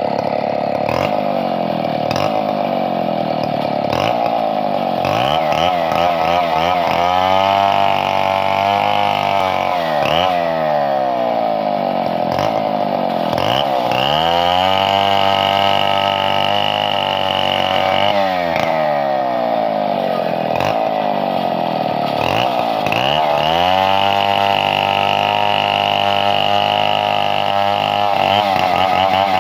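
Chainsaw running at high revs while cutting wood: the engine note sags each time the chain bites and climbs back as it frees, several times over.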